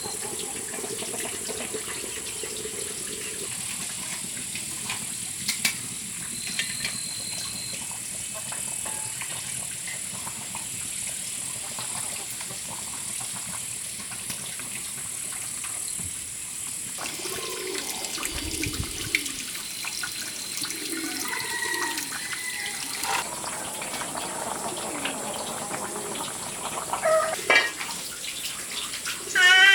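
Water running steadily, a continuous hiss. Short faint whining calls from animals come and go in the second half.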